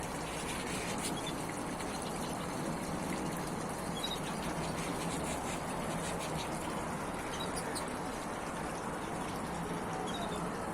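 Small artificial waterfall and fountain splashing steadily, with a few brief high chirps from small finches scattered through it.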